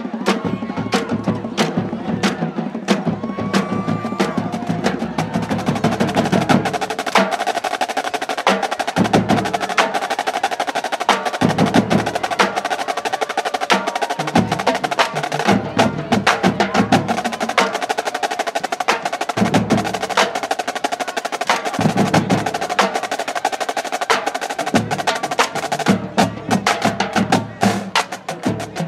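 Marching band drumline playing a cadence: fast, crisp snare strokes and stick clicks, with bass drum hits every couple of seconds.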